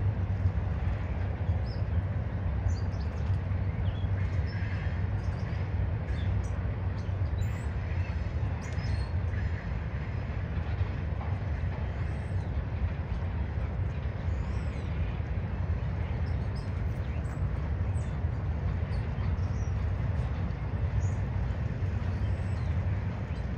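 Steady rumble of a double-stack intermodal freight train's cars rolling past at a distance, with bird chirps here and there.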